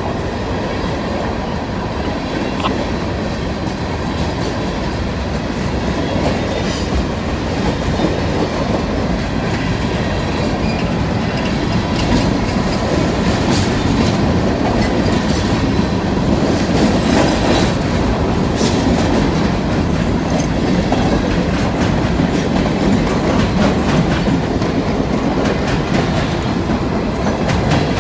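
A string of empty steel hopper cars rolling past close by: a steady rumble with the clickety-clack of wheels over rail joints and scattered clanks.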